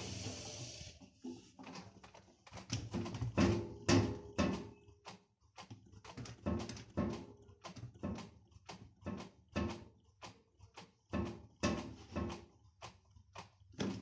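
Washing-machine drum whirring to a stop in the first second, then a run of irregular sharp knocks and rustles, about two a second, as damp laundry is handled inside the stainless-steel drum.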